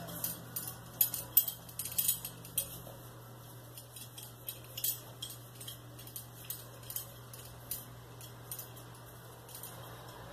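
Light metallic clinks and clicks of climbing hardware, carabiners and a pulley, being handled and clipped, busiest in the first few seconds and then sparser.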